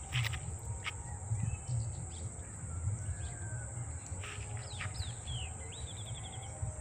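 Bird calls: a few quick downward-sweeping chirps about four and a half seconds in, then a short rapid trill. Under them runs a steady high insect drone and a low wind rumble on the microphone.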